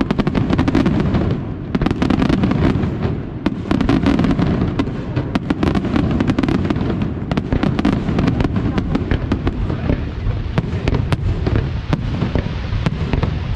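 Aerial fireworks display: a dense, continuous barrage of shell bursts, with many rapid sharp cracks over a constant low rumble.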